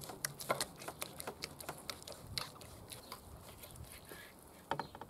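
Knife slicing raw beef into small pieces on a wooden cutting board, the blade clicking irregularly against the board, with a louder cluster of clicks near the end.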